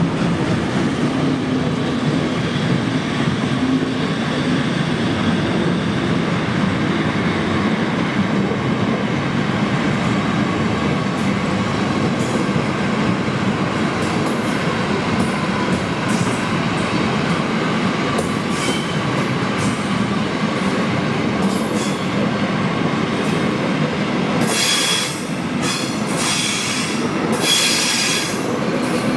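Passenger coaches of a long train rolling past, wheels rumbling and clicking over the track. In the last few seconds the wheels give several short bursts of high metallic squeal.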